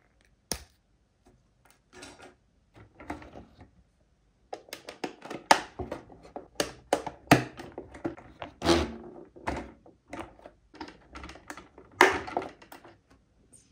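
Small hard plastic parts clicking, tapping and snapping under fingers as a plastic roof rack is pressed onto a 1/16-scale RC car's plastic body. A few scattered clicks at first, then a dense, irregular run of clicks and snaps with several sharper, louder ones.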